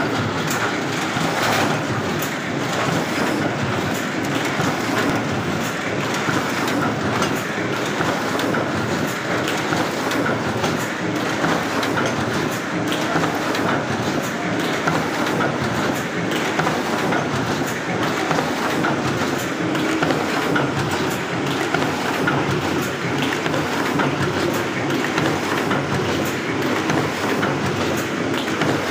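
Heidelberg SBB cylinder press, a flatbed cylinder letterpress, running: a steady, rhythmic mechanical clatter as the bed travels back and forth and the sheet grippers cycle.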